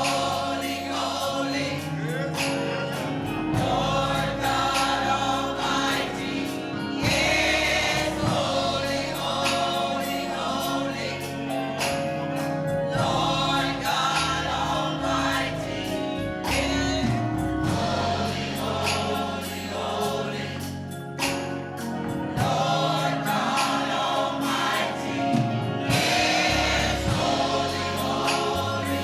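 Choir singing gospel music with instrumental accompaniment and a steady beat.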